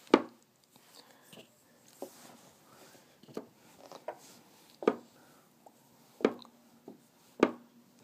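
Magnetic chess pieces being set down one after another on the board. They make a series of sharp clacks at irregular intervals, the loudest right at the start.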